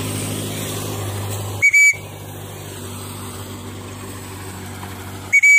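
A loud, high, steady whistle blown as a quick double note, once about one and a half seconds in and again near the end, as a call to a loose pet cockatiel. A steady low hum runs underneath.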